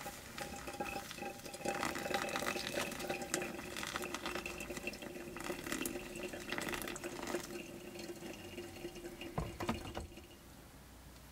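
Hot water poured in a thin stream from a gooseneck electric kettle onto coffee grounds in a paper pour-over filter, trickling steadily. Near the end, a few knocks as the kettle is set back on its base.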